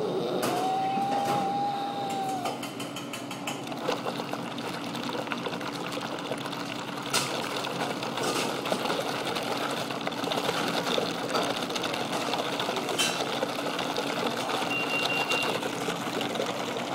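Air blown through a drinking straw into an iced drink in a plastic cup: fast, steady bubbling and gurgling through the liquid and ice.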